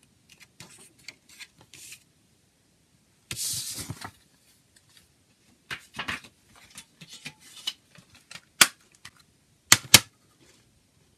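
Handling of a CD booklet and plastic jewel case: light paper rustling, a short scrape, then a series of sharp plastic clicks and knocks, the loudest a single click and then a quick pair near the end as the case is set down.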